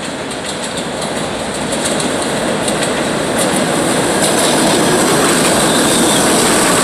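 R68 subway train on elevated track approaching and drawing alongside, its rumble growing steadily louder, with quick clicks of the wheels over the rail joints in the middle.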